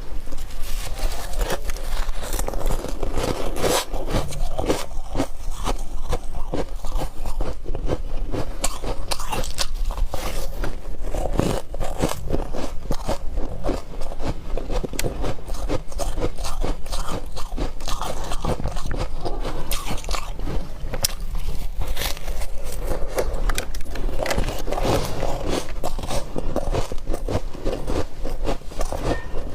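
Close-up chewing and crunching of chunks of frost ice: a dense, continuous run of squeaky, crackly crunches as the ice is bitten and chewed.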